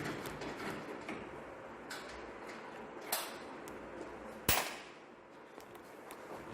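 Scattered clicks and metal knocks of hand tools at work on a car, with a sharp clank about four and a half seconds in.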